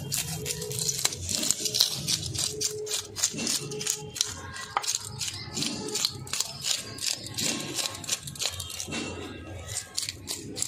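A knife scraping the scales off a rohu fish in rapid, repeated strokes, the scales flicking off with dry clicking rasps.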